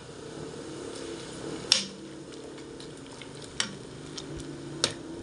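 Water boiling in a pot with water spinach blanching in it, a steady bubbling, broken by about three sharp metallic clinks as a wire-mesh strainer knocks against the pot to lift the greens out.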